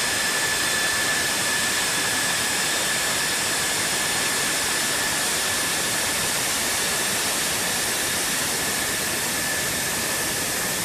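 F-16 Fighting Falcon's jet engine running at idle: a steady rushing roar with a single high whine held throughout.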